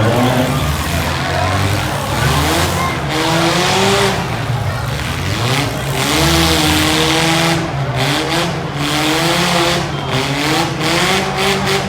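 Compact demolition derby cars' engines revving up and down, with tires spinning and squealing.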